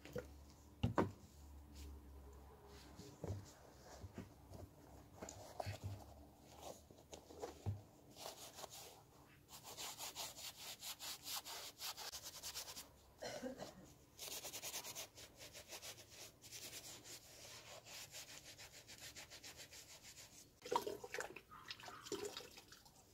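A sponge loaded with cleaning detergent scrubbing a white PUMA Turin sneaker in rapid rubbing strokes, densest through the middle. There is a single knock about a second in.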